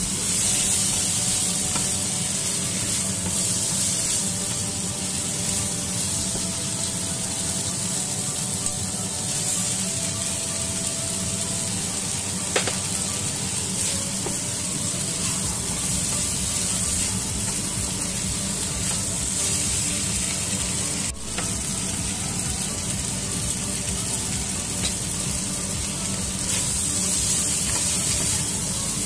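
Peppers, onion and vegetarian chicken sizzling steadily in hot oil in a nonstick wok, stirred and turned with a spatula. A single sharp click about twelve seconds in.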